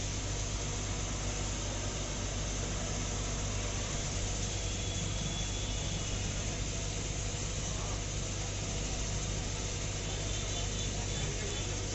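An engine idling steadily: a constant low drone that does not rise or fall.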